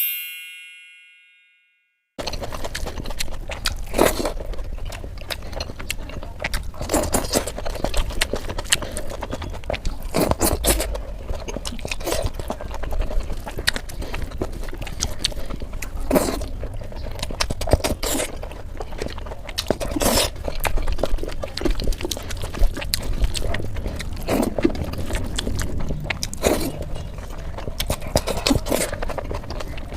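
Close-up chewing and crunching of fried eggplant slices (baigan bhaja), with irregular sharp crunches every second or two over steady mouth noise. A short ringing chime dies away at the very start, before the eating begins about two seconds in.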